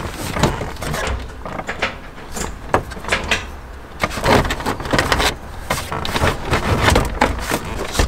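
A Ford Mustang's plastic center console being yanked and worked free of its mounts: irregular knocks, clunks and scraping of plastic trim, ending with the console lifted out.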